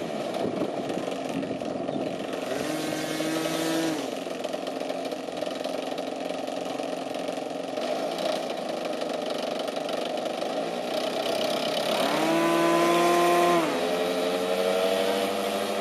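The engine of a large radio-controlled Spitfire model running on the ground, revving up in bursts: a short rise in pitch about three seconds in, a longer, louder one about twelve seconds in, and climbing again near the end as the model rolls across the grass.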